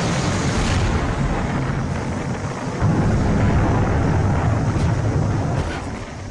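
Loud, continuous rumble of a rocket, surging about three seconds in and dying down near the end.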